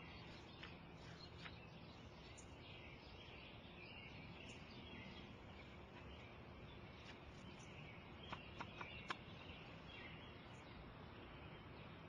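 Faint background of small birds chirping, with four quick, sharp clicks close together about eight to nine seconds in.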